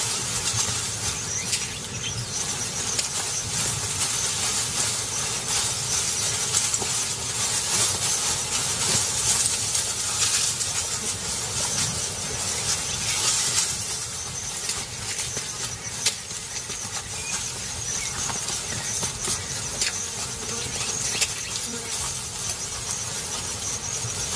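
Steady hissing outdoor ambience of a grassland, with no distinct events.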